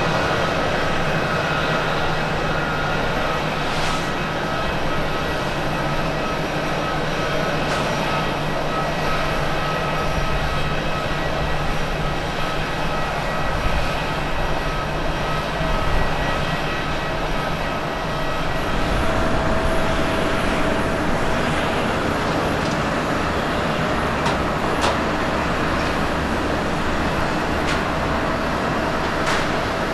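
Jet engine noise from a Boeing 747-8 climbing out after takeoff: a steady rumble with a few faint whining tones. About two-thirds of the way through, the sound changes to a Boeing 787-9 rolling on the runway.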